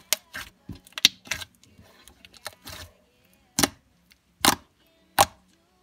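Slime being squeezed and pressed in the hands, giving off sharp, irregular clicking pops, several close together near the start and then about one every second.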